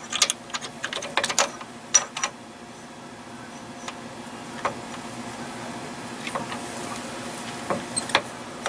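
Metal clicks and clinks of Ford 7.5 differential spider gears and pinion shaft being turned and lined up by hand in the carrier: a quick run of clicks in the first two seconds, then scattered single clicks, over a steady low hum.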